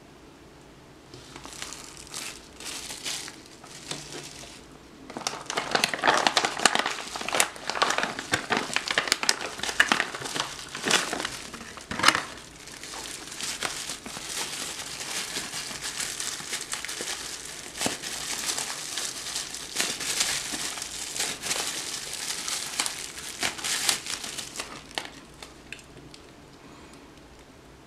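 Clear plastic packaging wrap crinkling and crackling as hands unwrap a metal camera cage from it, loudest in the first half, with a sharp snap about twelve seconds in, and dying away near the end.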